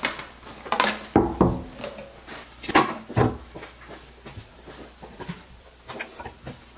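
Plates and cutlery clinking and knocking against each other and the table as dishes are set down, in several separate clatters.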